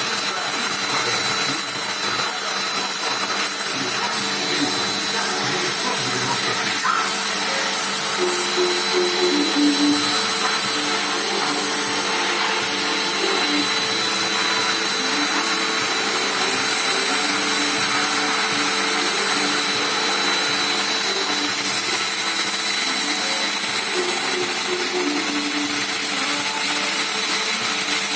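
Vacuum cleaner running steadily without a break, a loud even whooshing with a thin high whine in it.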